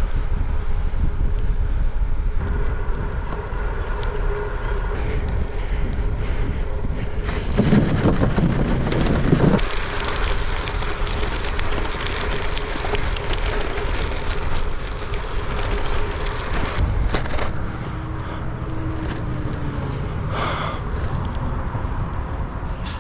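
Wind rumbling steadily on the microphone while on the move, with a louder rush of noise about eight seconds in.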